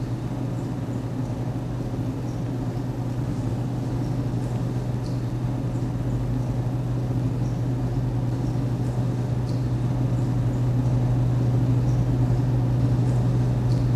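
Underwater ambience on a film soundtrack: a steady low hum that slowly grows louder, with faint scattered clicks.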